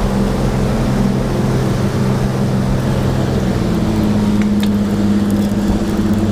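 Sportfishing boat's diesel engines running hard under heavy throttle, over the rush of the churned wake and wind. The engine note shifts a little past halfway through.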